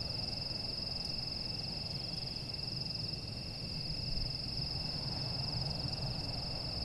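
Crickets trilling: one steady, unbroken high-pitched trill over a low background rumble.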